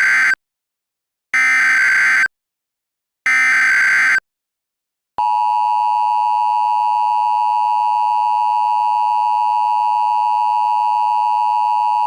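Emergency Alert System tones: three short SAME header data bursts, the first already under way, then about five seconds in the steady two-tone EAS attention signal starts and holds. The tones announce an alert that is a tornado watch.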